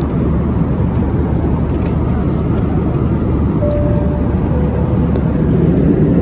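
Steady cabin noise of an Airbus A321 in flight: engine drone and the rush of air past the fuselage, heaviest in the low end. A short, faint tone sounds a little past halfway.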